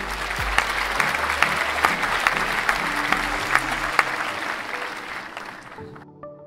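Crowd applause, a dense patter of clapping over quiet background music, fading away and stopping near the end.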